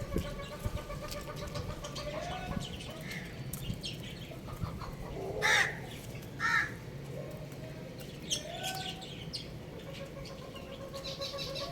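Domestic chickens calling: scattered faint calls, with two short loud calls about halfway through, over a faint steady tone.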